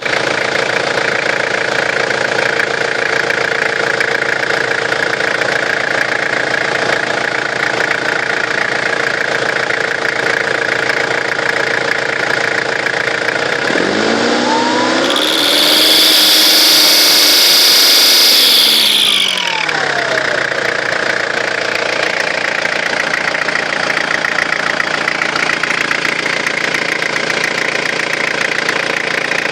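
Turbocharged car engine idling, then revved once about halfway through for around five seconds. As the revs rise, a loud high-pitched turbo whine comes in, then fades as the engine falls back to idle. The whine is excessive, the sign of a faulty turbocharger.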